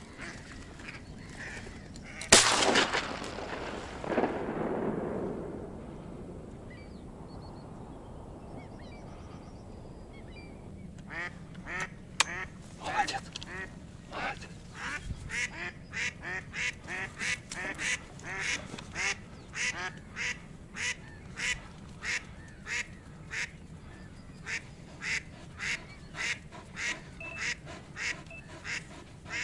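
A single loud shotgun shot about two seconds in, its echo dying away over a few seconds. From about eleven seconds a decoy duck quacks in a long, even series, about one and a half quacks a second.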